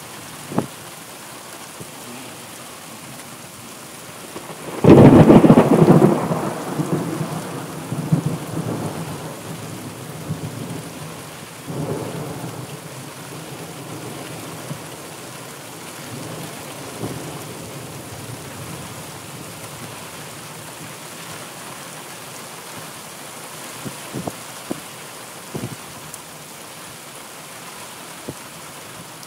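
Steady rain with thunder: about five seconds in a loud thunderclap breaks out and rumbles away over several seconds, with a weaker rumble near twelve seconds.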